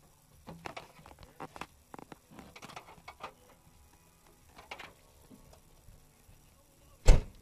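Scattered clicks and rustles of a handheld tablet being handled close to the microphone, mixed with short wordless vocal sounds, then one loud thump near the end.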